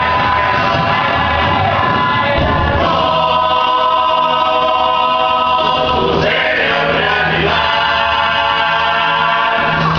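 A group of voices singing together in sustained chords, with a brief change in the harmony a little after six seconds.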